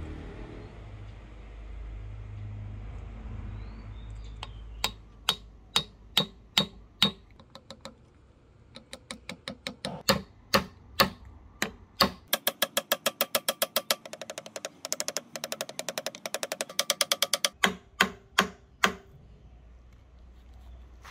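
A hammer tapping a thin wooden wedge down into the kerf of a rosewood axe handle to lock it in the axe head. First a series of single knocks, then long fast runs of light taps about ten a second, ending with a few harder knocks.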